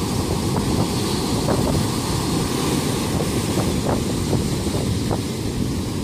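Surf breaking and washing up on a sandy beach, a steady rushing of waves, with wind buffeting the phone's microphone in a low, fluttering rumble.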